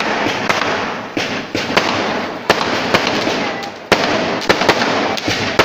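Aerial fireworks bursting one after another: a string of sharp bangs over a continuous crackling hiss, with a loud bang about four seconds in.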